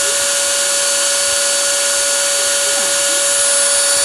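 CNC machine's spindle motor running steadily: a constant whine over a strong hiss.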